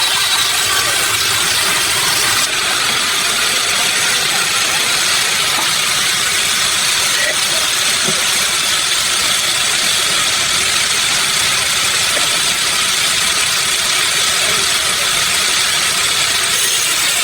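Sawmill machinery running steadily: a loud, continuous mechanical noise with a faint steady whine in it and no distinct cuts or impacts.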